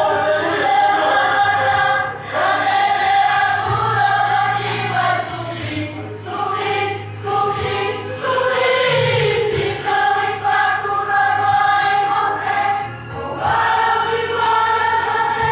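Christian gospel music: a choir singing long held notes over a steady bass accompaniment.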